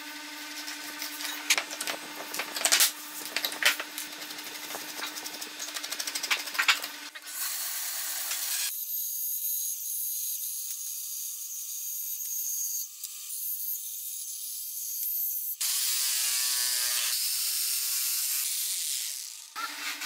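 A hammer knocking nails into a pallet board, a series of sharp strikes over a steady hum for about the first seven seconds. A power tool then runs steadily, and near the end its pitch slides up and down.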